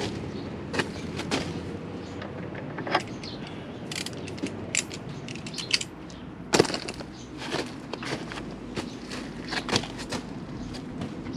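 Hammer blows on a stripped, rounded-off motorcycle oil drain bolt to deform it until a smaller socket fits: a string of irregular sharp knocks, the loudest about two-thirds of the way through.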